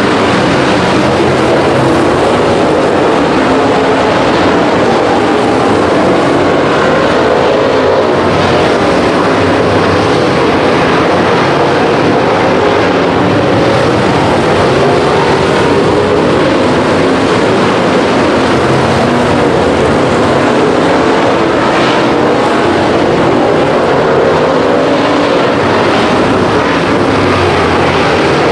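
Dirt track race cars' engines running hard at racing speed, a loud, continuous, blended engine noise that rises and falls as the cars circle the track.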